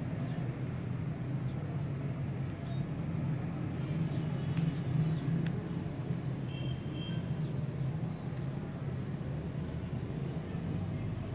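Steady low hum of background noise, with a few faint short high tones about halfway through.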